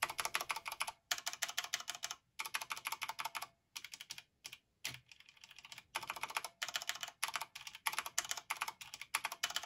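Corsair K95 RGB Platinum XT mechanical keyboard with stock, unlubed Cherry MX Speed Silver linear switches, a key pressed rapidly by one finger. The keystrokes come in quick runs of clacks, broken by short pauses.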